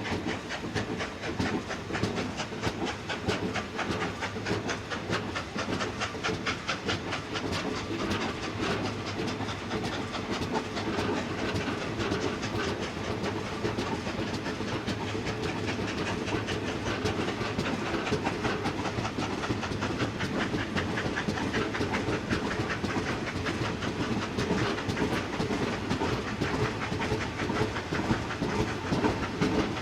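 Class 24 2-8-4 steam locomotive running with a train of wagons: a steady clatter of wheels on the rails with hissing steam, a little louder near the end.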